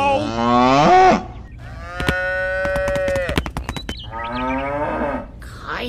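Cows mooing, dubbed over the footage as sound effects: three calls, the middle one long and held at a steady pitch.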